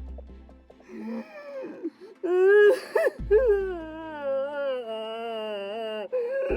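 A wailing cry sound effect, pitched and wavering: a short cry about a second in, then a long held cry that sinks slowly and cuts off about six seconds in. It plays over light background music, with a low thud at the start and another about three seconds in.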